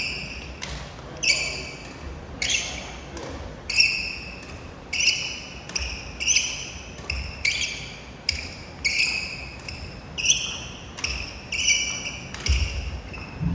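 Badminton backhand push drill: sharp racket strikes on shuttlecocks and court shoes squeaking on the gym floor, repeating about every second in a reverberant hall. A loud low rumble comes in near the end.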